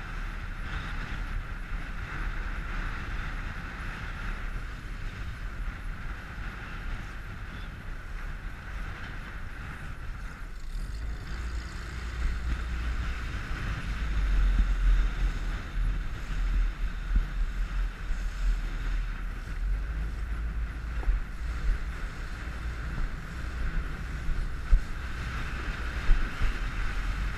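Wind buffeting the microphone, with water rushing and splashing past the hull of a moving inflatable boat. The wind rumble swells about halfway through, and there are a couple of short slaps near the end.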